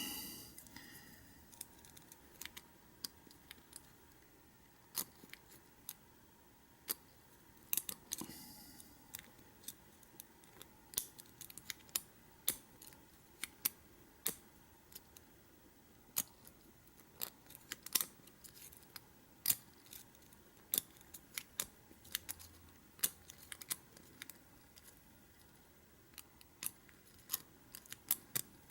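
Lock pick and tension wrench working in the keyway of an American 600 padlock: irregular sharp metal clicks, roughly one or two a second, with a brief scrape about 8 seconds in. The pins are stiff and frozen.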